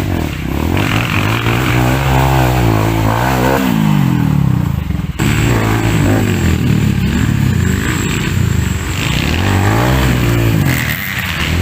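Dirt bike engine revving up and down over and over, its pitch rising and falling every second or two, with a brief break about five seconds in.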